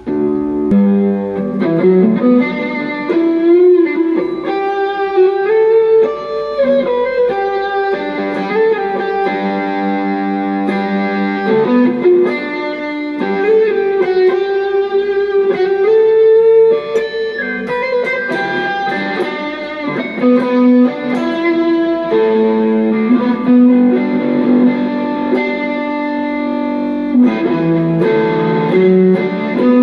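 Electric guitar played through a Cuvave Cube Baby multi-effects pedal: a melodic lead line of sustained single notes with string bends that glide up and down in pitch.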